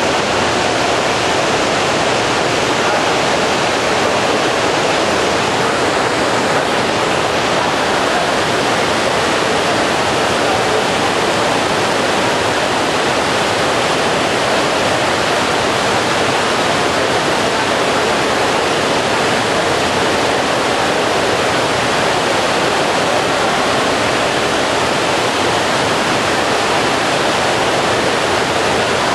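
Water from an indoor fountain cascading over artificial rocks: a steady, loud rushing splash that does not change.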